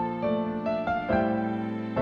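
Background piano music: a melody of single notes changing every few tenths of a second over held lower chords.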